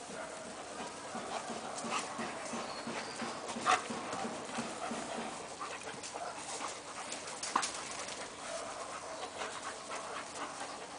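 A Doberman and German shepherds play-fighting: panting and scuffling, with a few short sharp sounds, the loudest about four seconds in and again near seven and a half seconds.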